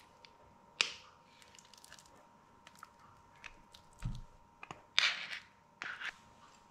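Spatula scraping soft cream cheese out of a plastic tub into a stainless steel mixing bowl: several short scrapes and clicks, with a soft thud about four seconds in.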